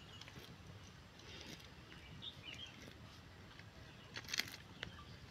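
A giant tortoise biting and tearing at a leaf on the ground, with a few crisp crunches and clicks about four seconds in. A bird chirps briefly midway.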